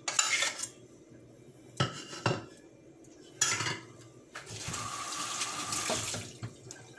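A few short clinks and knocks of a spoon against a plate and a metal baking pan, then a tap running for about two seconds near the end.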